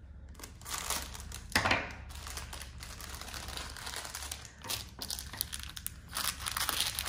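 Plastic packaging and bubble wrap crinkling and rustling as they are unwrapped by hand, in irregular bursts, with louder crackles about a second and a half in and near the end.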